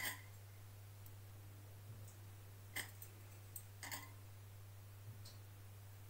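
A few faint, sharp clicks, about four spread over several seconds, over a steady low hum.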